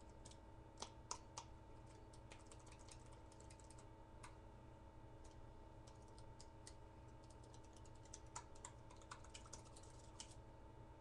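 Faint, irregular clicking and light scraping of a fingerboard rubbed quickly along a metal fingerboard rail to spread melted wax, over a steady faint hum.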